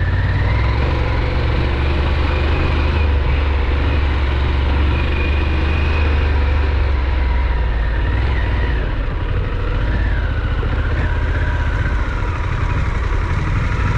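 Harley-Davidson Pan America's 1250 V-twin engine running steadily while the motorcycle is ridden off-road, its pitch rising and falling a little with the throttle over a heavy low rumble.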